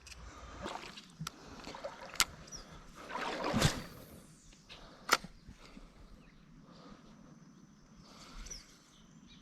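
Water sloshing in a shallow creek, with a brief whooshing splash about three and a half seconds in and a few sharp clicks scattered through.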